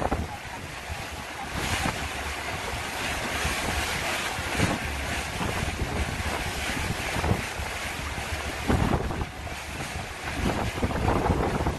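Wind buffeting the microphone in repeated gusts over the rush of choppy water along the hull of a moving boat, with a low steady rumble underneath.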